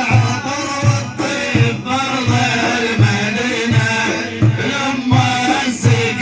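Middle Eastern devotional music in an instrumental interlude: a steady drum beat with a wavering melody over it.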